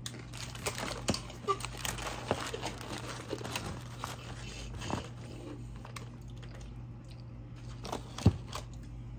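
Close-miked mouth sounds of eating crunchy fried food: irregular crunching, chewing and crinkling clicks over a steady low hum, with one sharper click near the end.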